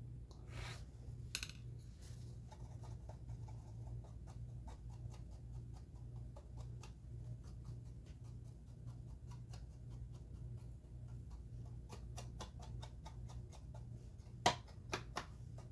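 Paintbrush bristles dabbing and stroking a wash onto a plastic model ship's hull, giving faint, quick, irregular ticks over a steady low hum. One sharper click comes near the end.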